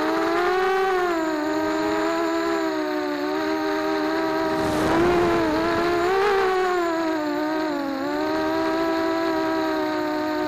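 Racing quadcopter's electric motors and propellers whining, heard from its onboard camera, the pitch sliding up and down with the throttle. A brief rush of noise about five seconds in.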